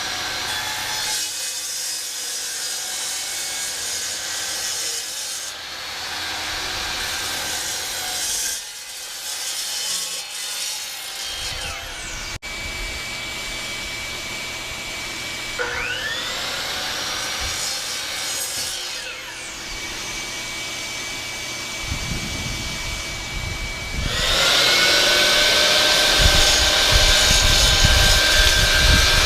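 DeWalt DWS709 12-inch sliding compound miter saw with a 32-tooth blade, cutting wood. Its motor whine spins up with a rising pitch about halfway through, and the sound gets louder over the last few seconds.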